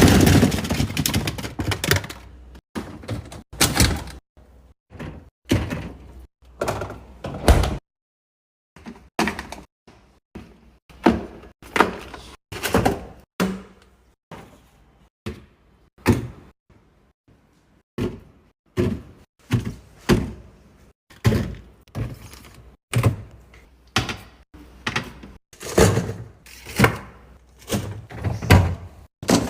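Refrigerator being stocked: a steady run of sharp clacks and thuds, about one a second, as containers, bottles and fridge drawers or shelves are set down and moved. There is a brief dead stop about eight seconds in.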